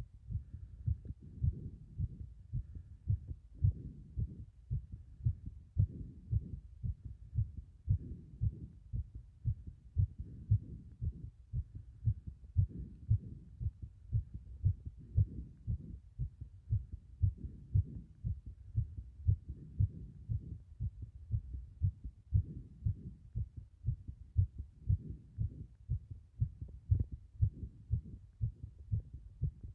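Human heartbeat, recorded up close: a steady, regular run of low, muffled thumps.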